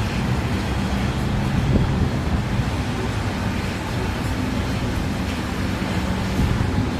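Strong gusty wind buffeting the microphone: a steady, rough rumble with a faint steady hum underneath.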